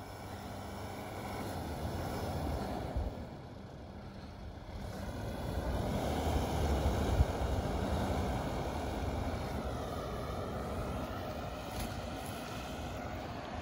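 Force Gurkha 4x4's diesel engine revving under load as the vehicle ploughs through deep snow. It grows louder about halfway through, then eases off.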